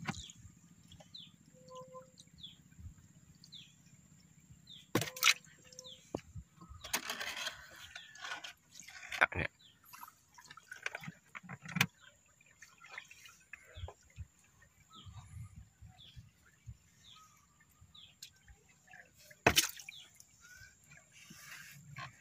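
A gill net being hauled in by hand over a wooden boat: water splashing and dripping off the net, with a few sharp knocks on the wooden planks, the loudest near the end.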